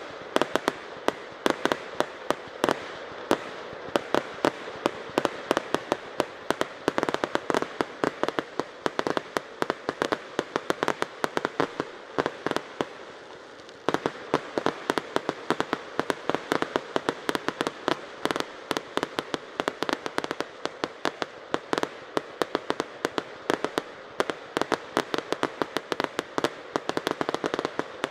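Fireworks display: a dense, rapid barrage of bangs and cracks, several every second, over a constant crackle. It thins out briefly about halfway through, then resumes as thick as before.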